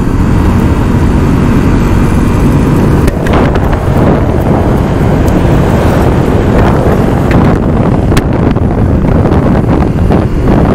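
Engine and road noise of a vehicle on the move, with heavy wind rushing over the microphone. Two brief sharp clicks, about three and eight seconds in.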